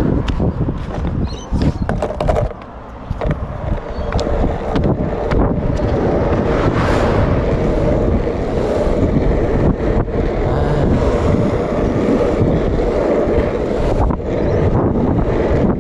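Skateboard wheels rolling on smooth asphalt with wind buffeting the microphone, and occasional sharp clicks. The level dips briefly about two and a half seconds in.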